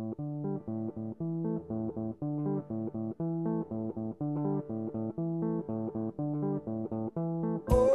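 Background music: a guitar riff of short, clipped notes repeating in a steady rhythm. Near the end, a full band with drums comes in suddenly and louder.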